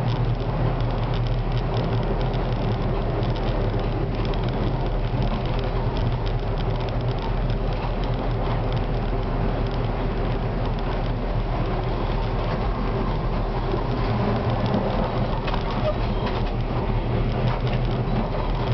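Konstal 105Na tram running along the track, heard from inside the driver's cab: a steady running noise of wheels on rails with a constant low hum.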